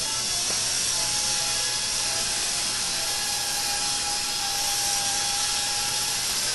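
Small handheld buffer spinning a foam pad, buffing a urethane clear-coated panel with cutting compound: a steady whine over a hiss.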